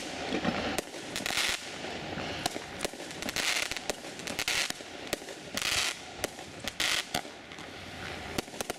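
Fireworks firing shot after shot from one spot: a string of sharp bangs and pops, with short bursts of hiss from the rising shots, about every second or two.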